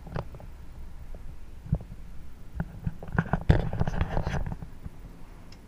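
Low steady rumble with scattered knocks and a louder clatter about three and a half seconds in, the sound of someone moving about on a fibreglass boat.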